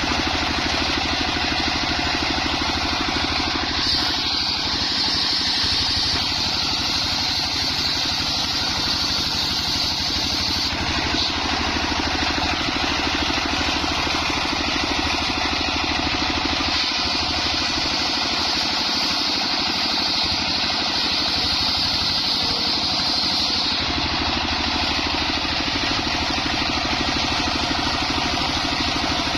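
Homemade engine-driven circular saw running steadily, with a high whine from the blade that comes in twice, for about seven seconds each time, as it cuts through coconut trunk.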